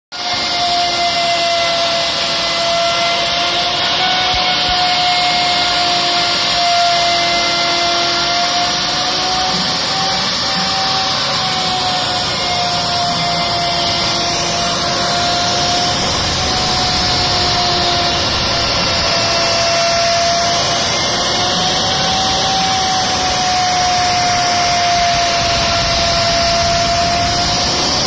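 CNC router spindle running steadily while milling a table surface: a steady whine whose pitch wavers slightly, over a constant rushing hiss.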